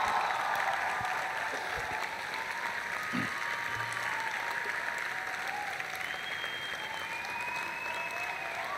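A large crowd clapping and cheering, a dense steady patter of many hands with a few voices whooping over it. It is loudest at the start and eases off slightly towards the end.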